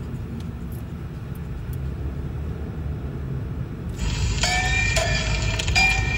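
Car cabin road rumble while driving, steady and low. About four seconds in, a run of bright ringing, bell-like notes starts over it, roughly two a second.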